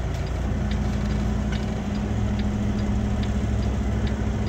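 Semi-truck diesel engine running at low revs while backing a trailer, its note stepping up slightly about half a second in and again about two seconds in. A regular light ticking, about one and a half a second, runs over it.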